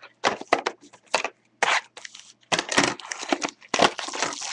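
Trading card pack wrapper crinkling and crackling in the hands as it is pulled from the box and opened, in a run of short, uneven bursts with a longer rasp near the end.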